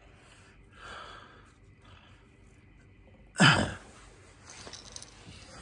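A man breathing out, a soft exhale about a second in, then a loud, sudden sigh about three and a half seconds in that dies away quickly, followed by softer breathing.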